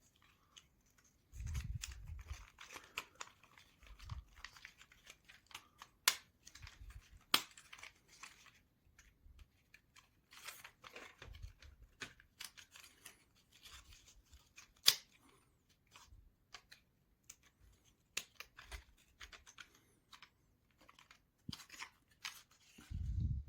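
Thin basswood model-kit parts being handled and pressed together: scattered light clicks and taps of wood on wood with soft rustling, and a few sharper clicks as pieces seat into place.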